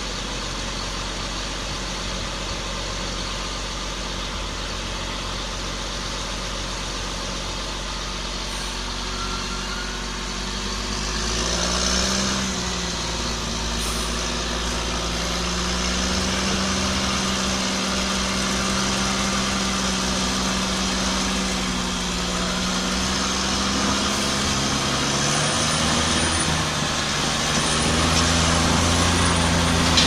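Cat D6R bulldozer's diesel engine running at idle, then revving up about twelve seconds in and holding higher revs, and rising again near the end. The dozer is taking up the load of towing a truck crane on a cable.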